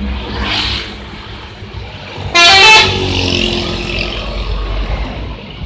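A tour bus's 'telolet' multi-tone air horn gives one short, loud blast about two and a half seconds in, over the low rumble of the bus's engine.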